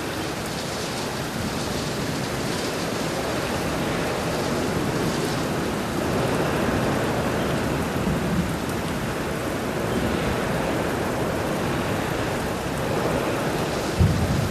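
Steady rushing noise from a tinnitus-masking sound track, spread evenly from low to high pitch and swelling slightly now and then. A short low thump about 14 seconds in is the loudest moment.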